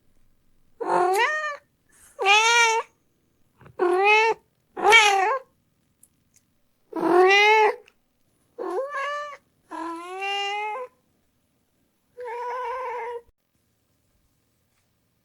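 A cat meowing repeatedly, eight loud meows in a row, each rising in pitch, the last one flatter and quieter.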